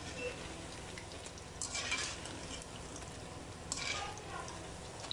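Batter pakoras deep-frying in hot oil, a steady sizzle, with two brief louder bursts as they are stirred in the pan, about two and four seconds in.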